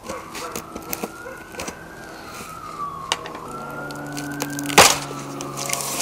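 A siren wailing, its pitch rising and falling slowly twice. Scattered clicks and one sharp crack about five seconds in.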